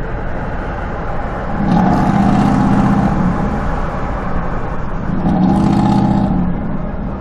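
A car driving, heard from inside the cabin: steady road noise with engine sound that swells twice, each time for a second or two, as the car picks up speed.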